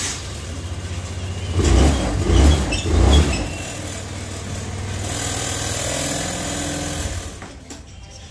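Hero Maestro Edge 125 scooter's single-cylinder engine running just after being started on its newly fitted self-start switch. It is revved in a few strong pulses about two seconds in, then runs steadier and drops away near the end.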